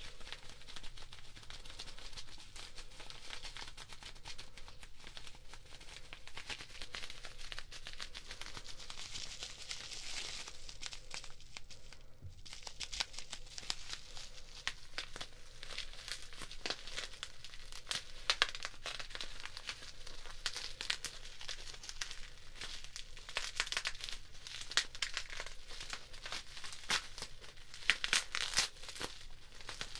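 Packaging crinkling in the hands, paper and then a plastic bubble-wrap pouch, as a dense run of crinkles and sharp crackles. There is a short pause about twelve seconds in.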